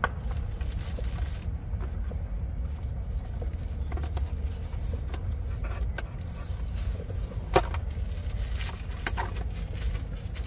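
Cardboard toy packaging handled by hand: light scrapes and clicks as the lid and inner box are lifted, with one sharp click about seven and a half seconds in, over a steady low rumble.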